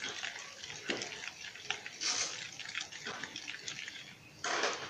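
A plastic spoon stirring a thin paste of ground black gram and water in a ceramic bowl: irregular wet sloshing with the spoon clicking and scraping against the bowl, louder near the end. The paste is being stirred smooth, with the lumps broken up.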